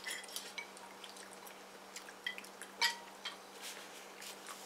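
Faint scattered clicks and taps of utensils against bowls while eating, with one sharper clink about three seconds in, over a low steady hum.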